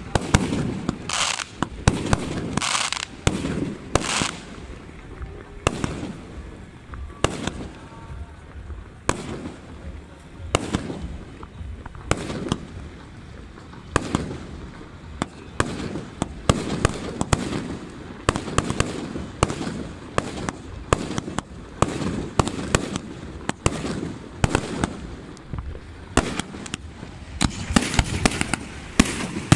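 Fireworks display: aerial shells launching and bursting in a dense, irregular string of sharp bangs, heavier and louder near the start and the end.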